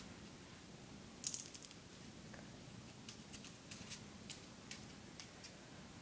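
Faint, sharp little clicks and taps from an African grey parrot on a windowsill: a quick cluster about a second in, then single clicks spaced through the rest.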